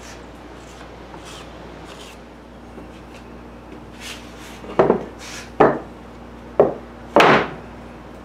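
Hand rubbing over glue-spread wooden boards, then the boards knocking against each other and the workbench as one glued board is laid onto the other: four loud wooden knocks in the second half, the last one longer.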